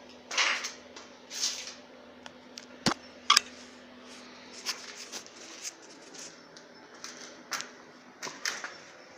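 Metal parts of a lathe variator being handled during reassembly: scattered clicks, clinks and short scrapes. The sharpest knocks come about three seconds in.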